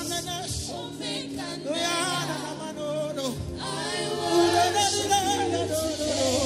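Church worship music: several voices singing together in long, wavering held notes over steady low accompaniment.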